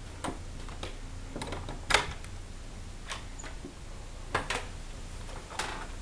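Irregular knocks and clicks from footsteps on wooden floorboards indoors. The loudest knock comes about two seconds in, and a pair comes a little after four seconds.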